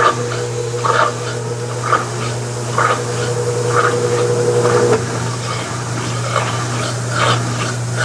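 Consul CWB09AB top-load washing machine draining its wash water: the drain pump runs with a steady hum while the empty basket turns, and water swishes about once a second. A higher whine stops about five seconds in.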